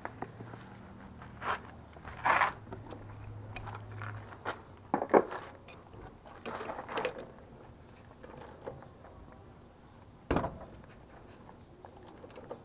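Metal clinks, scrapes and knocks of a socket ratchet and wheel lug nuts being worked by hand, with sharper knocks about two, five and ten seconds in. A low steady hum runs underneath for the first few seconds.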